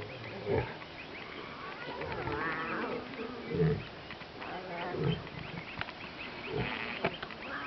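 A pride of lions with cubs vocalising at close range: a series of short growls and calls, some low and rough, some higher and wavering.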